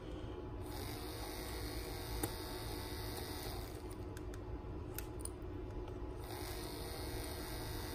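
Small screwdriver and wire working a relay module's screw terminal: a few faint, brief clicks over a steady low hum.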